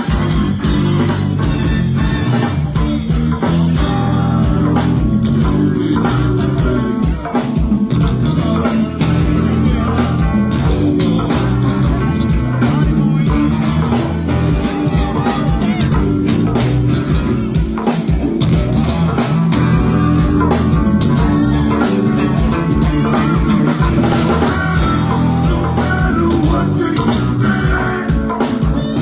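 Live go-go band playing a steady, continuous groove, with drum kit, congas and a strong bass line.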